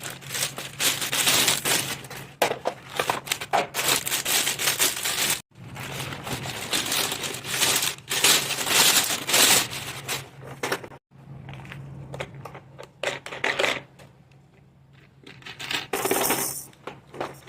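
Packaging and plastic parts of a baby walker being handled during unboxing: irregular rustling, crinkling and clattering. The sound breaks off abruptly twice.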